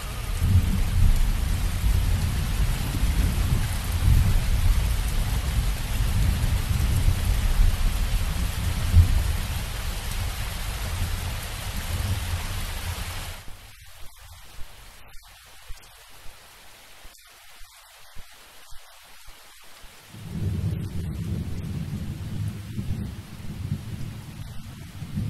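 Steady rain falling on pavement and puddles, with a low rumble under it. About halfway through the rumble drops away and single drips and patters stand out, then the low rumble comes back near the end.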